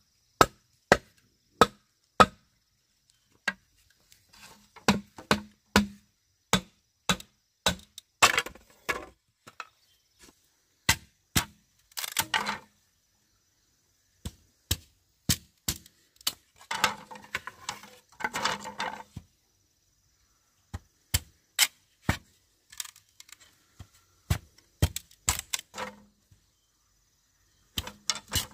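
Machete chopping at a bamboo pole: a series of sharp, separate knocks, some in quick runs and some spaced out, with a few longer, rougher stretches partway through.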